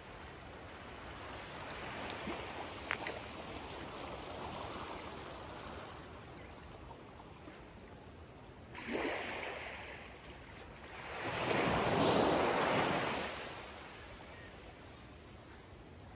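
Small waves lapping on a sandy shore in calm water. One breaks and washes up about nine seconds in, and a larger wash swells and fades a couple of seconds later.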